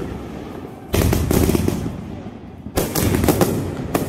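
Aerial fireworks bursting overhead in two volleys, one about a second in and one near three seconds in. Each volley is a rapid cluster of sharp bangs and crackles.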